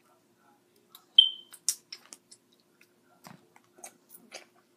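Wet sucking and lip smacks as fingers are licked clean. About a second in there is a short squeaky suck, then a sharp smack just after it, with softer wet clicks scattered through the rest.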